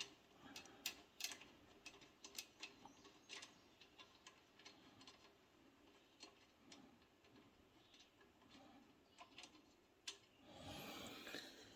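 Near silence with faint, scattered clicks and light taps from tools and small parts being handled and set down.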